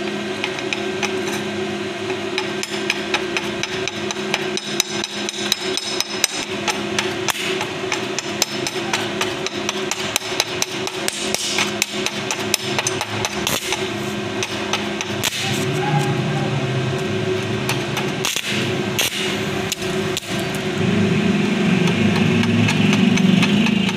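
Stick (arc) welding on rebar: the electrode's arc crackles in many sharp, irregular snaps over a steady low hum. Near the end it settles into a louder, continuous buzzing arc.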